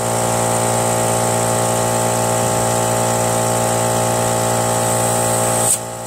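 Compressed air hissing steadily through an air chuck into a lawn tractor tire's new inner tube, inflating it, with an air compressor's motor running underneath. The hiss breaks off with a short burst near the end as the chuck comes off the valve.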